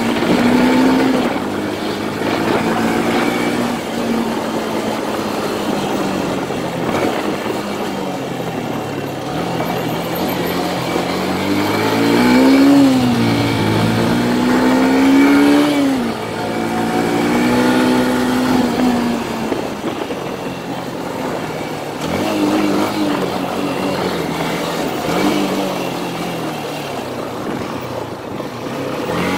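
Motorcycle engine running while the bike is ridden, its pitch climbing and dropping several times as the throttle opens and closes, over a steady rush of wind and road noise.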